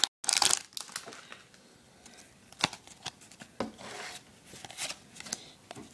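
Pokémon trading cards and a foil booster pack handled by hand: a rustle just after the start, then scattered soft rustles and light card clicks.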